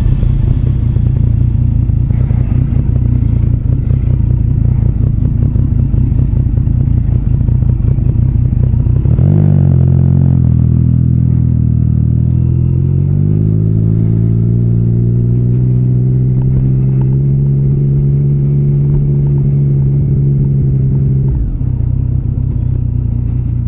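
Motorcycle engine at low speed with a low, uneven chug. About nine seconds in it picks up, rising in pitch over a few seconds, then holds a steady note before dropping back to the low chug near the end.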